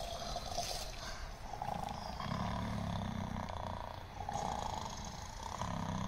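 Low, drawn-out ghostly moaning from the ghost-trio display's soundtrack, swelling and fading every second or two.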